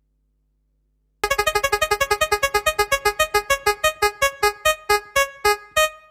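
Silence for about a second, then short synthesizer electric-piano notes repeating quickly and slowing down steadily, like a spinning prize wheel winding down.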